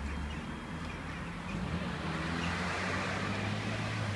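Low, steady hum of a car engine running, over faint street noise.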